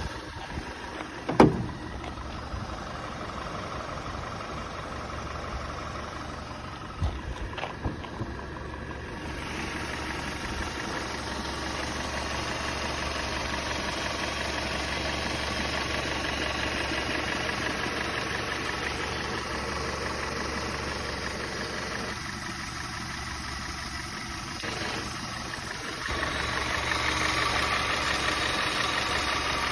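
Audi A5's turbocharged four-cylinder TFSI petrol engine idling steadily with the bonnet open, getting louder near the end as the microphone comes close to the engine. A single loud thump sounds about a second and a half in.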